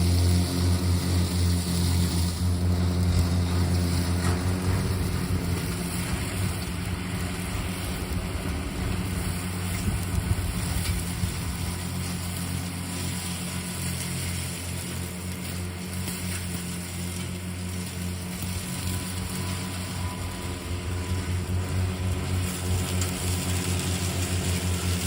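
Remote-controlled lawn mower running with a steady motor-and-blade hum. The hum eases off for most of the stretch and grows louder again near the end, as the mower moves away and comes back.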